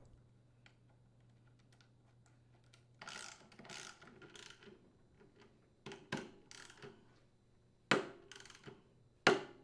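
Socket ratchet tightening the rotor mounting bolt of a front-load washer's direct-drive motor. The clicking starts about three seconds in and comes in several bursts, with the sharpest clicks near the end.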